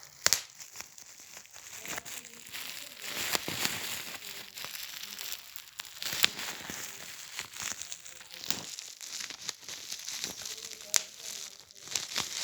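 Bubble wrap being squeezed: plastic crinkling close up, with sharp pops scattered irregularly through it, the loudest just after the start and about six seconds in.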